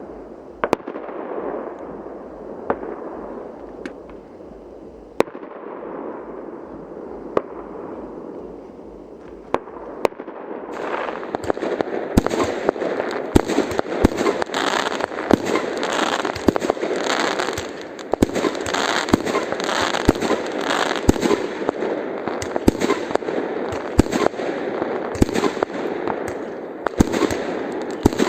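Fireworks going off: sharp bangs a second or two apart, each followed by a fading crackle. About eleven seconds in, the display thickens into a louder, dense run of bangs and continuous crackling.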